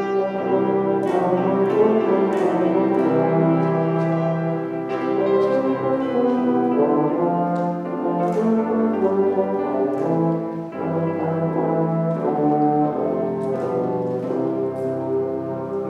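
Instrumental music of held chords that change every second or two, with no singing.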